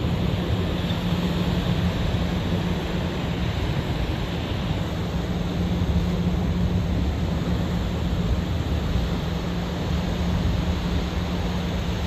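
Surf washing up the beach, a steady rush of noise, with a steady low hum running under it.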